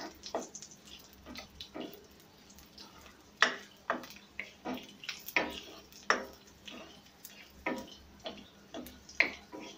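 Wooden spoon scraping and knocking against a metal kadai while stirring nuts and raisins frying in ghee: a run of short, irregular scrapes and taps, about one or two a second.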